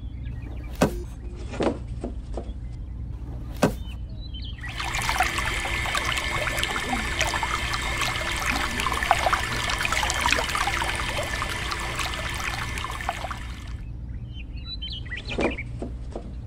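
A thin stream of water pouring from a small spout into a small clay pot, running for about nine seconds and then stopping. Before it, a few light knocks of clay pots being set down on a plastic toy trailer.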